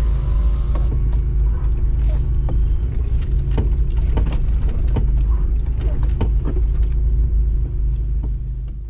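Off-road 4x4's engine running steadily at low revs while the vehicle drives over rough grass, heard from inside the cab, with scattered irregular knocks and rattles.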